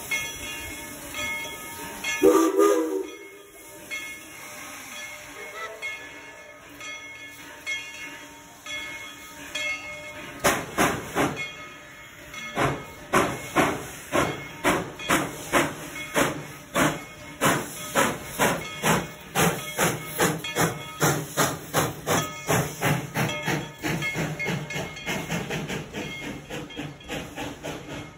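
Narrow-gauge steam locomotive hissing steam, giving a short whistle blast about two seconds in, then pulling away with exhaust chuffs that start about ten seconds in at roughly two a second and quicken near the end.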